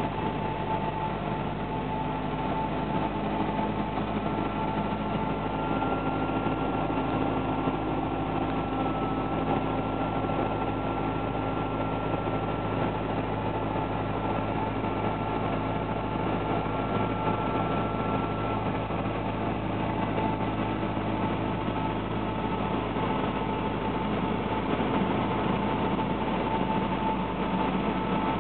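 Cessna 172's piston engine and propeller running with a steady drone, heard from inside the cockpit on the approach to landing.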